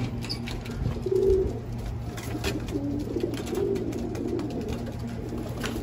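Racing pigeons cooing: several low coos, with a few sharp clicks among them.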